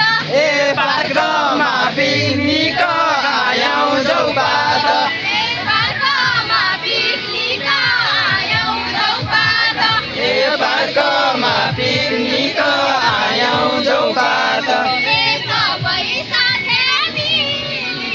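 Music with several voices singing together, dense and continuous.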